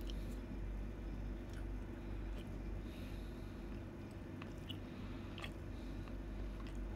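Someone biting and chewing a soft steamed egg, with small wet mouth clicks now and then over a steady low hum.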